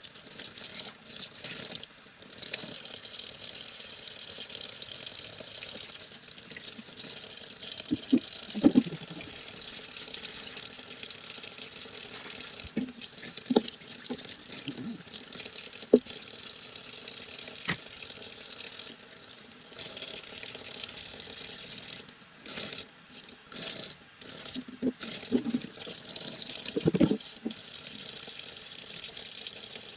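Tap water running into a sink, the stream dropping out and changing several times, with a few sharp knocks and clatters in between, as a Shark vacuum filter is washed.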